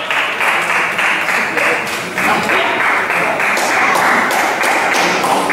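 Spectators applauding a won point in a sports hall: steady, dense clapping with a few voices mixed in.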